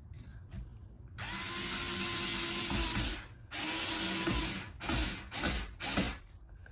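Cordless electric drill/driver driving a screw: two longer runs with a steady motor whine, then three short bursts near the end as the screw is snugged tight.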